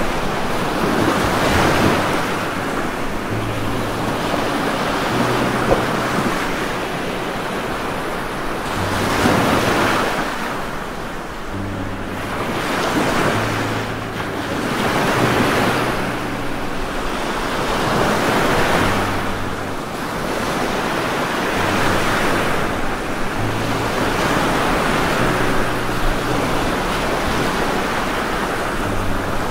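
Rain-and-wind ambience track: a steady rushing hiss that swells and eases every few seconds. Low steady hum notes sit underneath and shift in pitch now and then.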